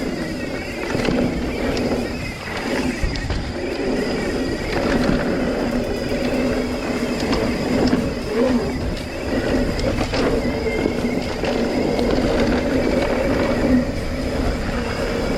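Mountain bike coasting fast down a dirt singletrack: continuous tyre and trail noise with wind rushing over the mic, and a few sharp knocks from bumps in the trail.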